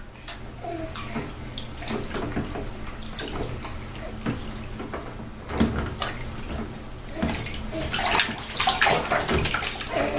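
Bath water splashing and sloshing in a plastic infant bathtub as a baby shifts and kicks her legs, in irregular splashes that come thicker and louder in the second half.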